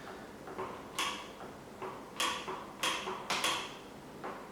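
Light sharp clicks at uneven spacing, roughly one or two a second, from hand work on a bicycle rim brake while its pads are being adjusted.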